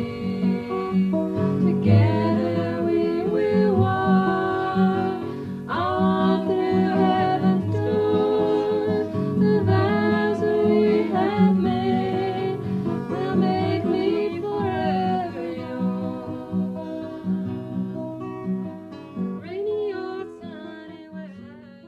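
Closing song: acoustic guitar with a singing voice, fading out near the end.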